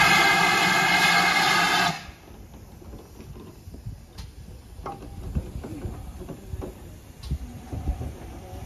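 Steam locomotive whistle from a GWR Manor class 4-6-0: one long, loud, steady blast lasting about two seconds that cuts off sharply. After it come quieter irregular knocks and a low rumble as the engine moves past.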